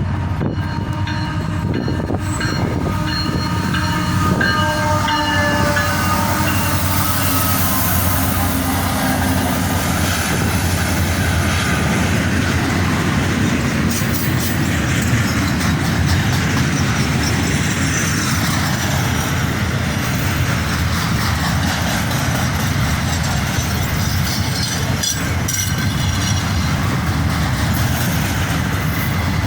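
Diesel freight train horn, on a Union Pacific train led by a GE ES44C4 locomotive, blowing a multi-note chord for roughly the first ten seconds, its pitch sliding lower as the locomotives pass. It is followed by the steady loud rumble of the train rolling by, with occasional clanks.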